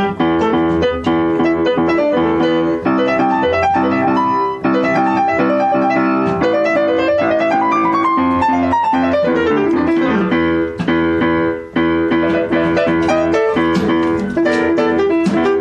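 Yamaha upright piano playing a fast jazz solo line over held chords, with a quick rising run about seven seconds in and a long falling run right after it.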